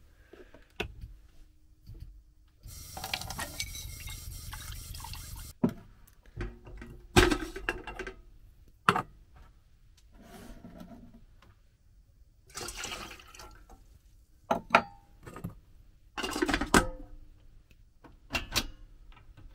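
Water running for about three seconds a few seconds in, then scattered knocks, clicks and short rustles of cups, a kettle and a gas stove being handled while coffee is made.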